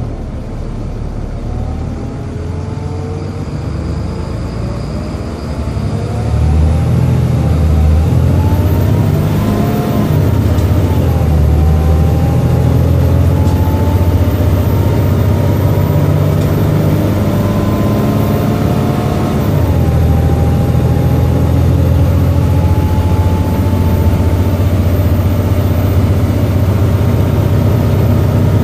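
Volvo B7LA articulated bus heard on board, its engine pulling under load with a heavy rumble and whines that climb in pitch as the bus gathers speed. The sound gets louder about a fifth of the way in. The whine drops suddenly in pitch about two-thirds of the way through, then climbs again.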